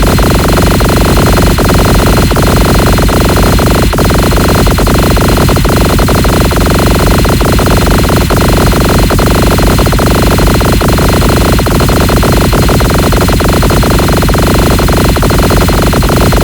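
Very loud, distorted electronic noise: an unbroken wall of static-like hiss with steady tones buried in it, made to be as annoying as possible.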